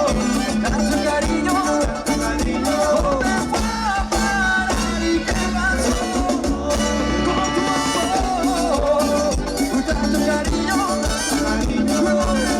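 Live band playing Latin dance music, with percussion keeping a steady beat under a wavering melody line.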